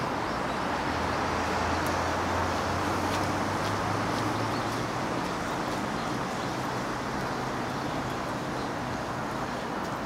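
Steady hum of distant road traffic, with a low engine drone underneath and a few faint ticks.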